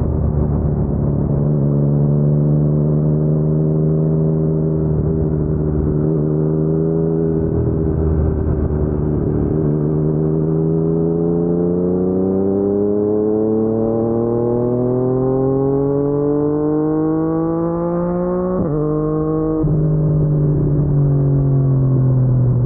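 Yamaha MT-09's three-cylinder engine through an Akrapovic carbon full-system exhaust, running steadily at low revs, then pulling up in pitch for several seconds under acceleration. Near the end the pitch drops sharply twice as a gear change comes and the throttle eases, and it settles to a lower, slowly falling note.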